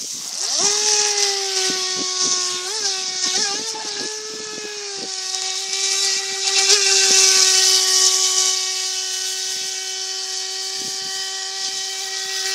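Feilun FT007 RC speedboat's battery-powered electric motor whining at a nearly steady high pitch as the boat runs across the water. It starts with a quick rise in pitch about half a second in, wavers briefly a couple of times, and runs over a steady hiss.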